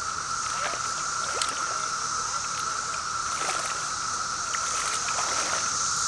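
A dense chorus of Brood V periodical cicadas: a steady, unbroken droning buzz. A few brief water splashes and sloshes come from a hooked carp being played in the shallows.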